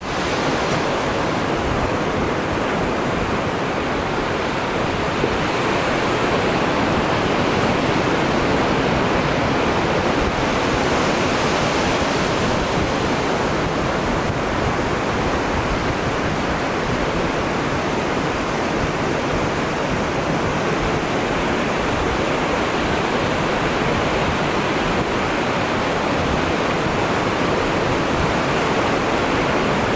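Small ocean waves breaking and washing onto a beach: a steady surf hiss with only slight swells.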